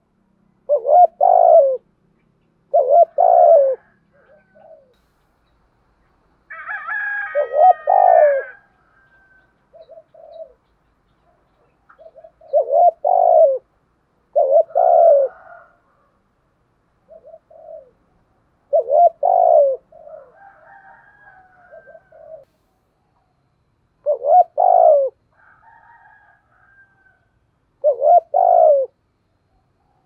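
Spotted dove cooing: short, low cooing phrases repeated every two seconds or so, with fainter, higher calls in some of the gaps.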